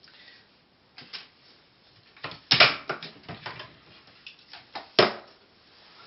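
Scattered light clicks and knocks as a small plastic wire connector and its leads are handled and set down on a wooden desktop, with two louder knocks about two and a half seconds in and near the end.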